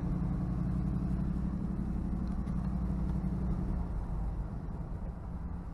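Car running as it is driven, a steady low engine hum with road noise, easing off a little about four seconds in.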